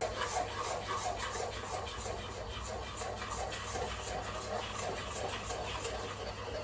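Chocolate brownie batter being stirred in a mixing bowl, with rhythmic scraping strokes about three times a second as the melted chocolate is worked into the egg and sugar mix.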